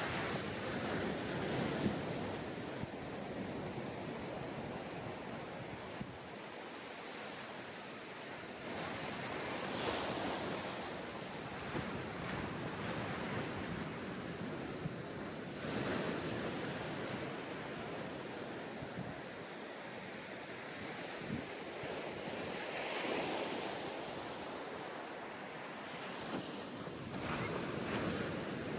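Sea waves breaking on a sandy beach and washing up the shore, the surf swelling and easing every few seconds, with some wind on the microphone.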